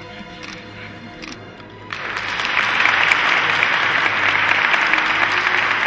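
Congregation applauding, breaking out suddenly about two seconds in and holding steady, over soft background music.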